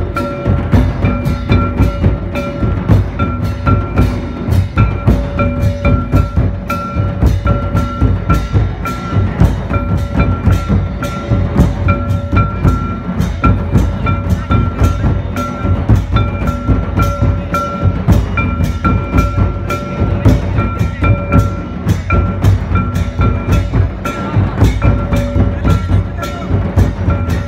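Drum-led dance music with a steady beat of about two strokes a second, over a repeating high held tone.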